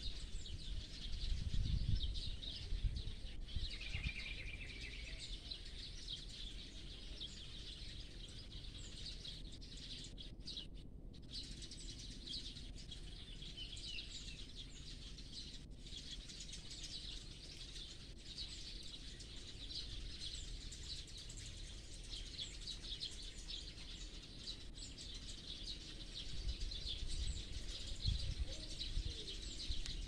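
Many small birds chirping in a tree, a continuous chatter of short, high overlapping calls. A low rumble rises under it early on and again near the end.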